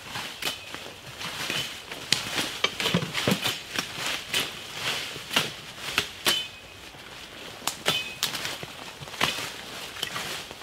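Brush-clearing tools swung through forest undergrowth, with rustling leaves and irregular sharp snaps and cracks of stems and twigs, a few to several a second.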